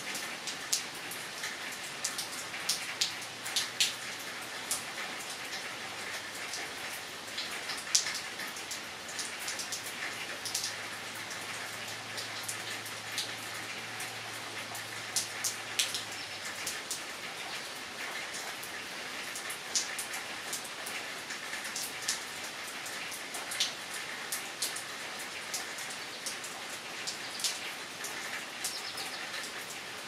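Steady rain falling, with many individual drops tapping sharply at irregular moments.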